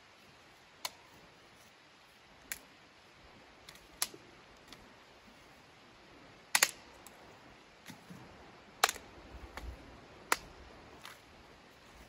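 A handful of sharp, irregular clicks or snaps over a faint steady background, the loudest a quick double snap a little past halfway.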